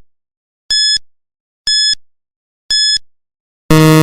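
Countdown timer sound effect: short high beeps once a second, then a longer, louder, lower buzz near the end that signals the time is up.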